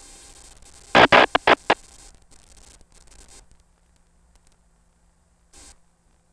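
Cockpit radio and intercom audio on the HUD recording: a steady hiss, broken about a second in by four loud bursts of static crackle in quick succession. It then falls nearly silent, with one short crackle near the end.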